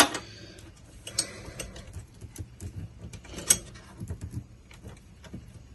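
Irregular clicks and light rattles of PC cables and their plastic connectors being handled. Sharp clicks come at the start and about three and a half seconds in.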